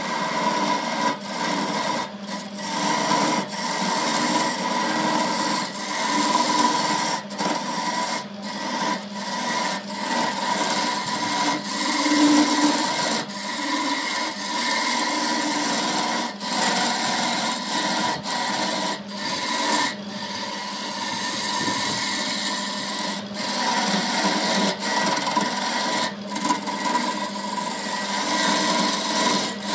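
Wood lathe running while a tool scrapes against the spinning workpiece made from pencils. There is a continuous hiss over a steady hum, broken every second or two by short gaps where the tool briefly lifts off.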